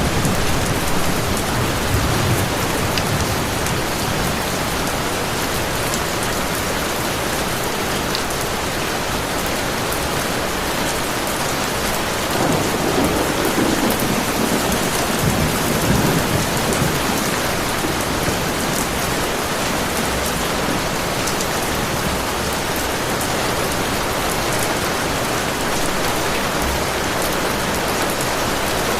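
Heavy rain falling steadily, with low thunder rumbling near the start and again about halfway through.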